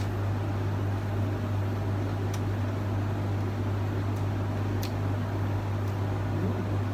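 Steady low machine hum with an even background of noise, unchanging throughout, with a few faint clicks.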